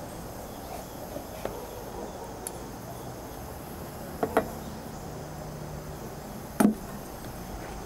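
Spoon knocking and scraping against a mixing bowl as a stiff scone dough is stirred by hand, with a few sharp knocks; the loudest comes about two-thirds of the way in. Steady high insect chirring in the background.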